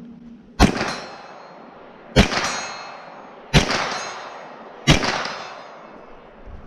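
Four gunshots at a steady pace, about one and a half seconds apart, each followed by a ringing tail that fades over about a second.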